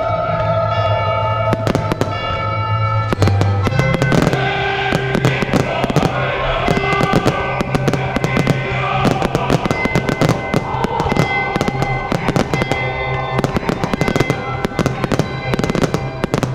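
Display fireworks bursting and crackling in quick succession, many reports a second, over a loud music soundtrack.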